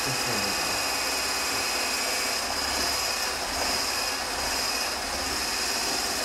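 Handheld immersion blender running steadily, whipping heavy cream in a towel-covered measuring cup, with a steady high whine.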